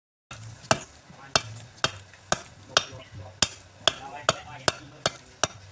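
Hammering: about eleven sharp blows at a steady pace of roughly two a second.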